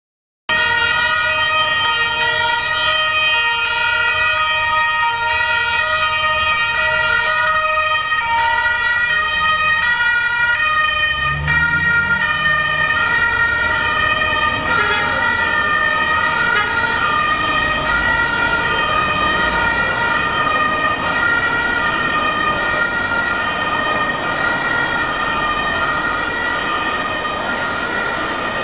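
Several police and escort-vehicle two-tone sirens sounding together, overlapping at different pitches, as vehicles of a cycling race convoy drive slowly past, with car engine and tyre noise underneath.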